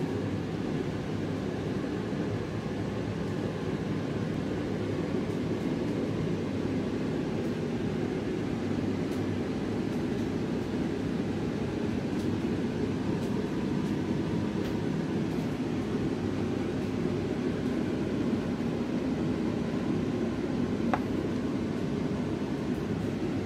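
Steady, even background noise, a low rumble and hiss with no distinct events.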